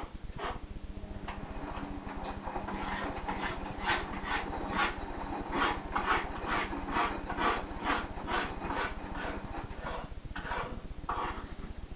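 A dog breathing in a run of short, quick, noisy breaths, a few each second and unevenly spaced, over a steady low hum.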